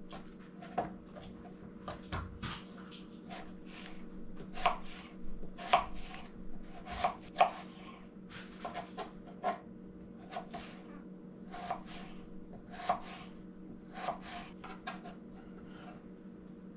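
Kitchen knife cutting a green apple into cubes on a cutting board: irregular sharp chops and taps of the blade through the fruit onto the board, with a steady low hum underneath.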